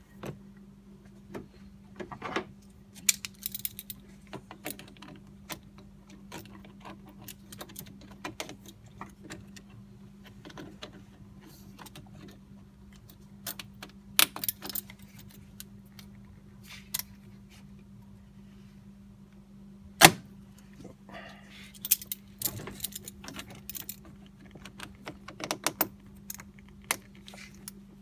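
Scattered metallic clinks, rattles and clicks of pliers and a spring hose clamp as a coolant hose is worked back onto a thermostat housing, with one sharp clack about twenty seconds in, over a faint steady hum.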